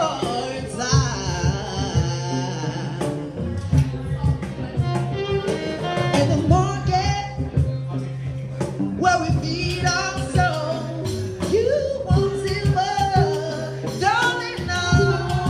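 A woman singing over musical accompaniment with a steady bass line and light percussion.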